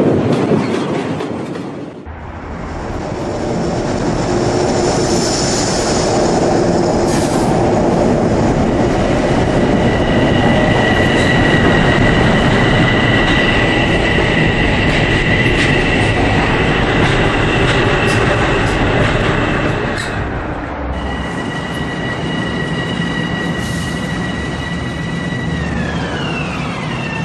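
Electric train running: a steady rumble and rail clatter with a high two-tone motor whine, which glides down in pitch near the end as the train slows.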